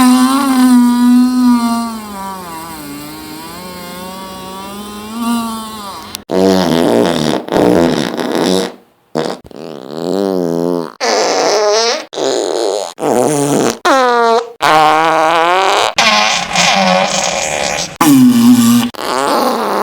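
Fart sound effects: one long, wavering fart of about six seconds, then a run of about ten shorter farts of around a second each, with brief gaps between them.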